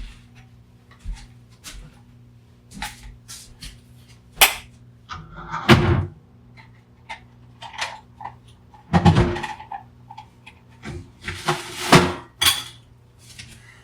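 Small metal tools and a broken alarm clock being handled: scattered clicks and light knocks, with three louder thuds spread a few seconds apart, over a faint steady hum.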